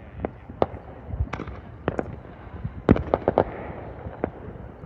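Fireworks bursting in an irregular series of sharp bangs, with a quick cluster of the loudest booms about three seconds in.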